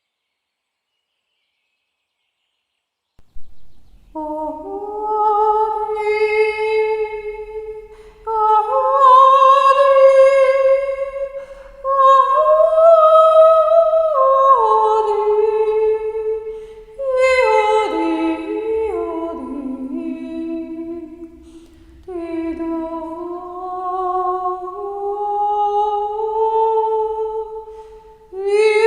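A woman's spontaneous wordless singing, the vocal toning of a Reiki healing session: long held notes that slide from pitch to pitch in phrases of a few seconds, with breaths between. It begins after about three seconds of silence.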